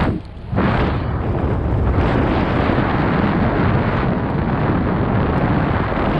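Wind buffeting the microphone of a camera on a moving bicycle: a loud, steady rumble that drops away briefly just after the start, then holds.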